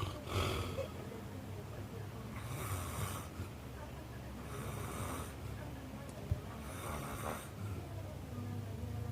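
Snoring: a noisy snore drawn about every two seconds, four in all, over a low steady hum.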